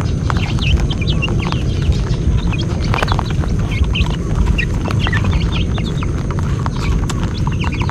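Rabbits chewing unhusked rice grains close to the microphone: a steady, dense dry crunching. Chicks peep repeatedly over it.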